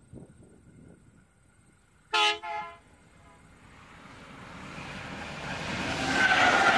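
SCT class diesel locomotive running light sounds its horn in two short blasts, the first louder, about two seconds in. Its engine and wheels on the rails then grow steadily louder as it draws near and passes, loudest near the end.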